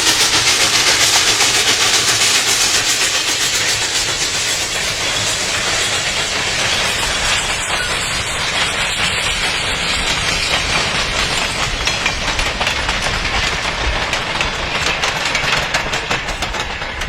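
A train running on the tracks: a steady rush of noise with a rapid series of wheel clicks that grow denser in the second half.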